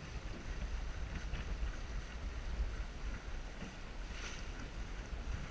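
Wind buffeting the microphone aboard a Lightning sailboat under sail, a steady low rumble with water moving past the hull.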